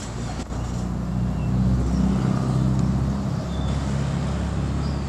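A motor vehicle's engine running steadily, growing louder about a second and a half in, then easing slightly.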